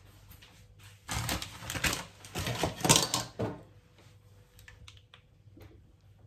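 A quick run of light knocks and clicks lasting about two and a half seconds, then quiet.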